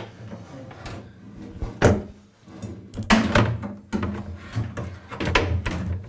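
Clunks and scrapes of a glass aquarium tank being set down into the stripped sheet-metal housing of a washing machine, with a sharp knock about two seconds in and a cluster of bumps around three seconds.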